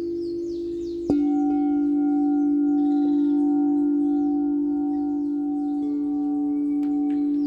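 Singing bowls ringing in a sound bath: one bowl's steady tone sounds, then about a second in another bowl is struck and sustains a deep, even ring with higher overtones over it.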